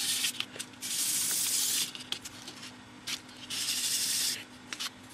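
Circuit board rubbed back and forth on abrasive paper, sanding off its solder resist: rasping scrapes, two long strokes of about a second each, one about a second in and one near four seconds, with short scrapes between.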